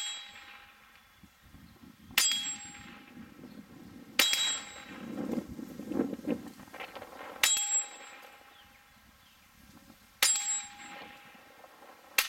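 Five .22 pistol shots from a Browning Buck Mark, a couple of seconds apart, each hit making the hanging steel target ring.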